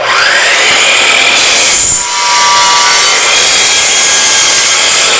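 Hercules 12-inch sliding compound miter saw starting up, its motor whine rising in pitch over the first second, then cutting through a wide wooden board with loud steady sawing noise and a brief dip about two seconds in.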